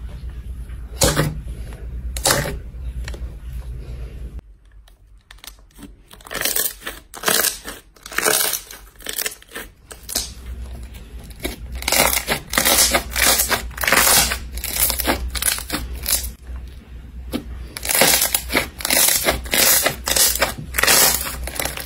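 Thick, glossy yellow slime squeezed, stretched and pressed by hand: irregular squelches and crackling pops, a few at first and then coming quickly, two or three a second.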